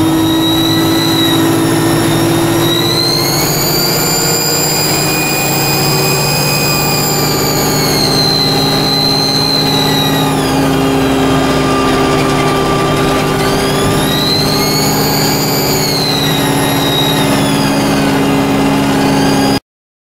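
Alexander Dennis Enviro200 bus heard from inside the passenger saloon, its diesel engine running under a loud, high turbocharger whine. The whine rises a few seconds in, holds, and falls away about ten seconds in. It then rises and falls again near the end, following the engine's load.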